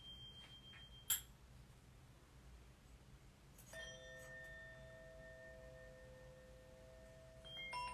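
Faint ringing of struck metal sound-healing instruments: a small bell's high tone is cut off with a click about a second in, then a single metal note is struck about halfway and rings on steadily until further notes begin near the end.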